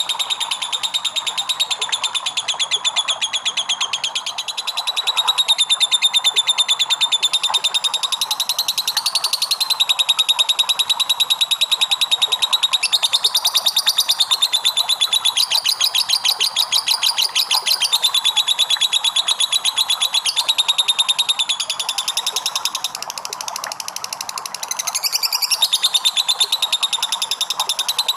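Lovebird singing a long, unbroken ngekek: a rapid chattering trill of high, shrill notes that carries on without pause, easing slightly once for a couple of seconds near the end.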